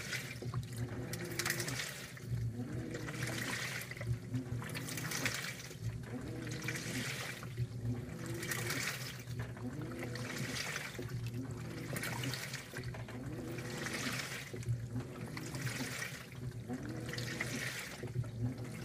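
2012 LG top-load washer agitating a large load in the wash phase: water and clothes swish in a surge about every two seconds as the wash plate reverses. With each stroke the direct-drive motor's hum rises and then falls in pitch.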